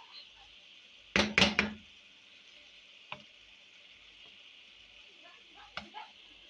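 Wooden spatula knocking against a frying pan while stirring chicken: a quick run of three loud knocks about a second in, then single knocks near the middle and near the end, over a faint steady sizzle of the chicken frying.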